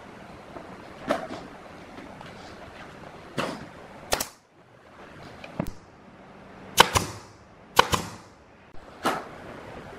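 Pneumatic brad nailer firing nails into plywood cabinet panels: a series of sharp shots at irregular intervals, some in quick pairs.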